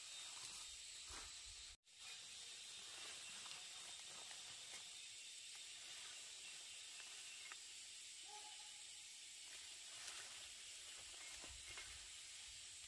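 Faint, steady high-pitched hiss with a few soft clicks; the sound drops out completely for a moment just before two seconds in.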